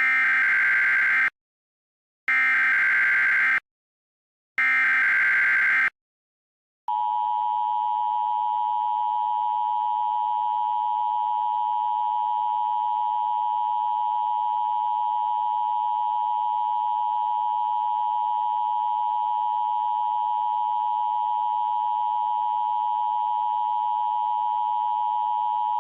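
Three short bursts of Emergency Alert System SAME header data tones, each about a second long with a short gap between, followed about seven seconds in by the steady EAS attention tone, held unbroken.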